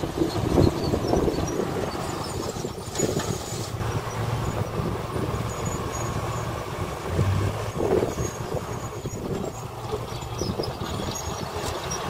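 Diesel dump truck engines running steadily at low revs while one truck's bed lifts to tip its load of soil.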